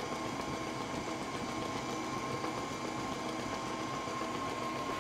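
Electric stand mixer running at a constant speed as it mixes cake batter, its motor giving a steady whine.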